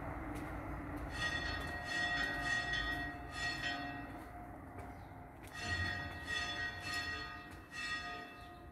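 Church bells ringing in quick strikes, a couple a second, starting about a second in, easing off briefly midway, then striking again.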